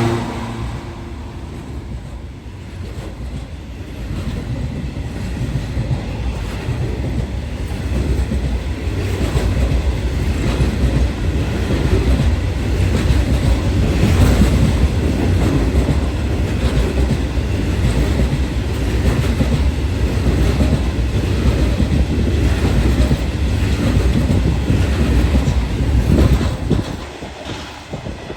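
Coal wagons of a freight train rolling past, with a steady low rumble and wheel clatter over the rail joints. The sound swells a few seconds in and fades near the end as the train draws away.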